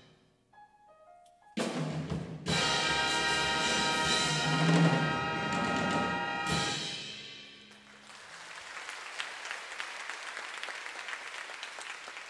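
Big band of saxophones, trombones, trumpets, piano, bass and drums ending a swing tune: a few soft notes, then two full-band hits and a held final brass chord that is cut off and rings away. After it, audience applause.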